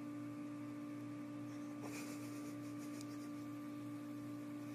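A steady, even hum holding several fixed pitches, with a faint brief rustle about two seconds in.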